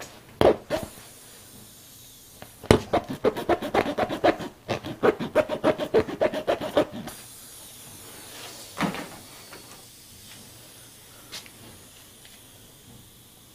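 Steel tire-repair tool being forced in and out of a puncture in a tire's rubber: a quick run of rasping strokes, about five a second, lasting some four seconds, with a knock before and another after. The hole is too tight for the plug to go in.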